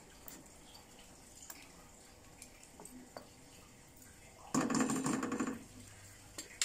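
Wooden spatula stirring fried popiah through thick sauce in a wok, with soft scrapes and light clicks. About four and a half seconds in, a louder buzzing rattle lasts about a second.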